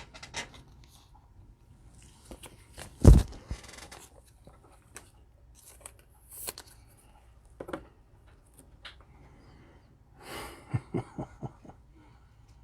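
Trading cards being handled and flipped through: scattered light clicks and rustles of card stock, with one loud thump about three seconds in and a flurry of rustling and clicks near the end.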